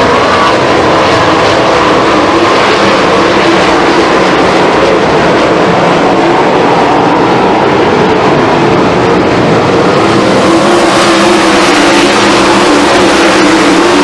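A pack of 410 sprint cars racing on a dirt oval: many 410-cubic-inch V8 engines running hard together in a loud, continuous drone. It grows a little louder and brighter near the end as cars come closer.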